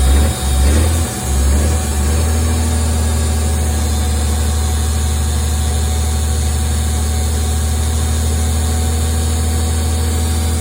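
1968 Kaiser Jeep 2½-ton military truck's multifuel engine catching and settling into a steady idle about a second in. Over it the air-brake low-pressure warning buzzer sounds steadily: air pressure is still under 60 psi, too low to release the trailer brakes.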